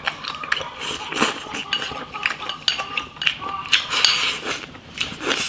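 A person eating from a ceramic bowl with chopsticks and a spoon: repeated light clinks of the utensils against the bowl, with short slurps and chewing at the rim.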